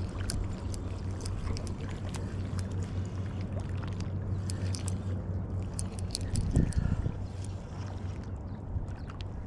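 Spinning reel on an ultralight rod being cranked against a hooked fish: irregular light clicks over a steady low hum, with a louder low thump of handling about six and a half seconds in.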